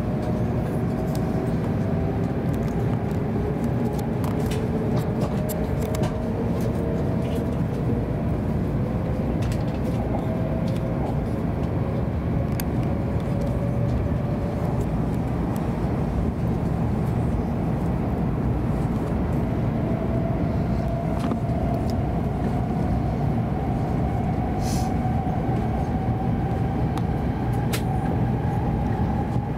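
Hokuriku Shinkansen train heard from inside the passenger cabin as it pulls out of the station and gathers speed: a steady running rumble with a motor whine that climbs slowly in pitch as the train accelerates.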